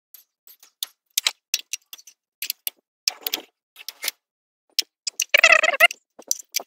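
Sped-up clicks and ticks of hands and a socket tool working around the ignition coils and their bolts, coming irregularly several times a second. A short, warbling, pitched chatter stands out about five seconds in.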